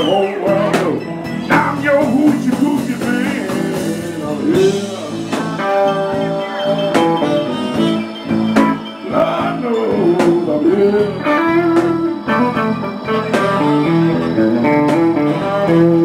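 A live blues band playing, with electric guitar and drums, the guitar bending notes.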